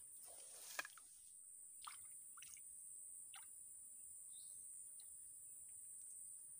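Faint swamp ambience: a steady high insect drone with a few short bird chirps. In the first second there is a brief soft rustle ending in a small click.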